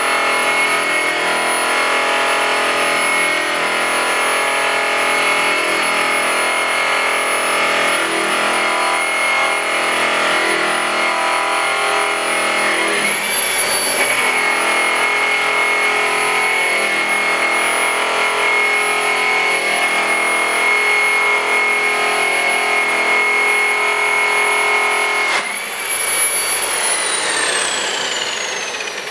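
Handheld electric rotary polisher buffing metal trim, its motor running with a steady high whine. About halfway through the pitch jumps up briefly, then settles back; near the end it rises again, then falls away steadily as the polisher winds down.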